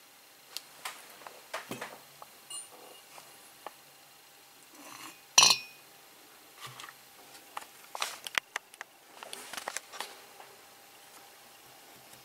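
Scattered light metallic clinks and taps as a Trabant 601 cylinder barrel is handled on a workbench and a piston ring is fitted into its bore. The loudest is a single sharp clink about five and a half seconds in.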